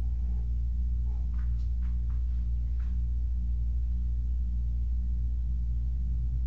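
Steady low hum, unchanging throughout, with a few faint soft ticks about one to three seconds in.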